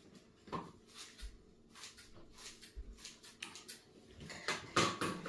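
A sheet of kitchen wrap pulled off its roll and torn off, with crinkling handling sounds, loudest near the end.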